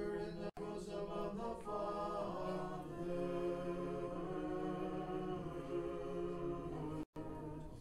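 Orthodox liturgical chant sung a cappella by several voices, on long held notes that move slowly in pitch. The sound cuts out for an instant twice, about half a second in and near the end.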